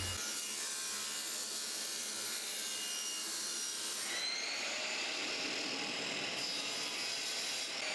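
Power saw cutting a strip of cocobolo: a table saw running steadily through the wood, then about halfway a second saw motor comes in with a faint rising whine.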